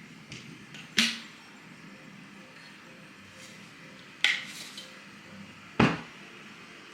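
Three sharp knocks of hard objects being handled, about a second in, just past four seconds and near six seconds, each with a short ring, over faint room tone.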